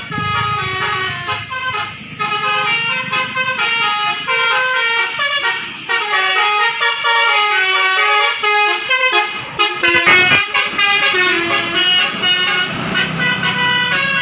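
Basuri telolet air horn on a bus playing a fast melody of short stepped notes, shifting from note to note with barely a break, with a low engine rumble underneath near the start and the end.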